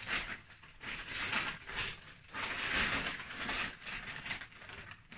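Paper sack of garden soil rustling and crinkling as it is handled, in several uneven bursts.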